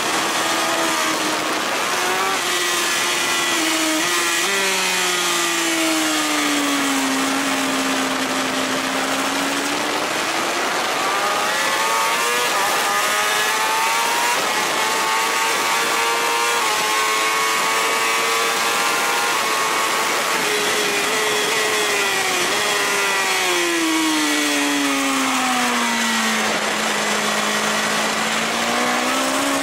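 BMW S1000RR's inline-four engine heard at track speed from on the bike, with heavy wind rush. Its note falls as the bike slows into corners, a quarter of the way in and again after two-thirds, and climbs in steps in between and near the end.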